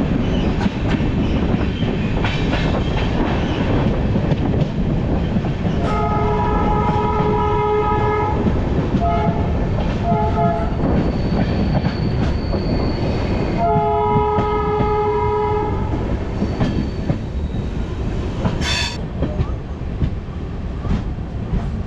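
Diesel locomotive running close ahead, heard from the leading coach, with a steady engine and wheel rumble. The locomotive horn sounds a long blast about six seconds in, two short blasts, then another long blast.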